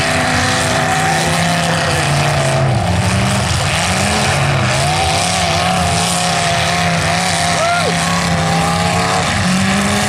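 Several full-size demolition derby cars' engines running and revving at once, a loud steady din with pitches rising and falling as drivers throttle up and back off.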